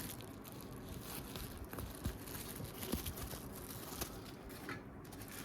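Quiet handling noise: faint rustling and scattered light clicks and taps as phone parts in plastic wrapping are picked through.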